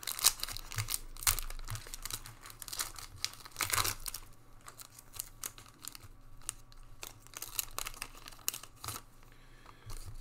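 A Panini football trading-card pack's wrapper being torn open and crinkled by hand, then the cards slid out. The crackling is densest and loudest in the first few seconds, then turns lighter and sparser.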